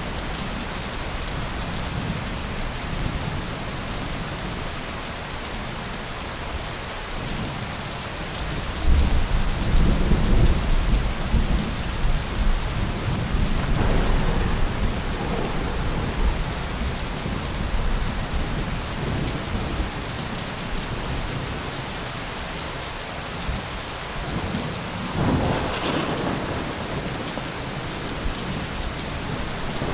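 Thunderstorm: steady rain with rolling thunder. A deep rumble swells about nine seconds in, the loudest part, and rolls on for several seconds, and a sharper crack of thunder comes near the end.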